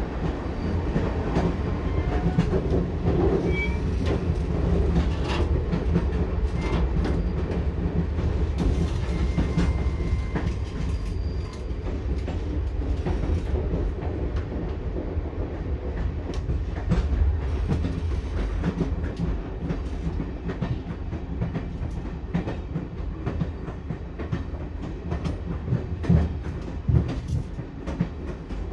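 Passenger train carriage running along the track: a steady low rumble with the irregular clickety-clack of wheels over rail joints, and two louder knocks near the end.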